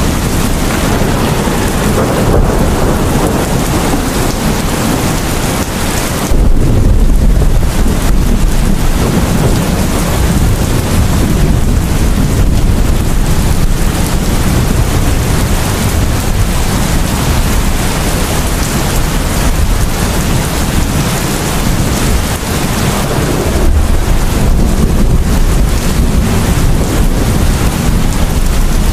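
Heavy rain falling steadily in a thunderstorm. A deep rumble of thunder comes in suddenly about six seconds in, and another, smaller rumble comes near the end.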